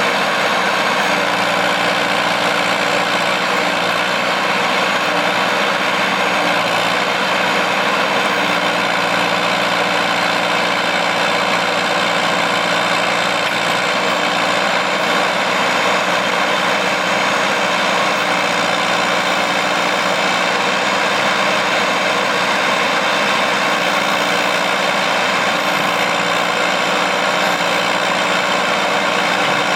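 John Deere 450C crawler loader's engine running steadily, with no change in speed.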